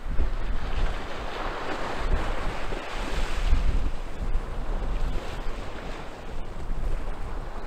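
Small waves breaking and washing up a sandy beach: a hiss of surf that swells about a second in, peaks around three seconds in, then eases. Wind buffets the microphone underneath as a low rumble.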